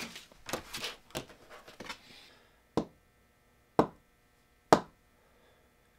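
Fleece fabric rustling as it is gathered and spread out, followed by three sharp knocks about a second apart.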